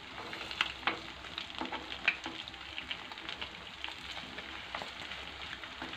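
Egg-coated tilapia fillets sizzling in shallow oil in a non-stick frying pan over low heat. Scattered pops and clicks come as a spoon and chopsticks work the stuck pieces apart.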